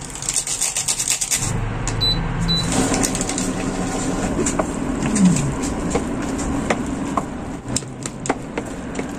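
Chopsticks clicking and scraping against a stainless-steel pot as instant noodles and seasoning are stirred, over a steady low hum.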